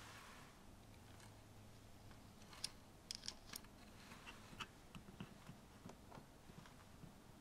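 A tiny metal spoon stirring milky liquid in a small glass bowl, giving faint, irregular clinks and taps against the glass that begin about two and a half seconds in.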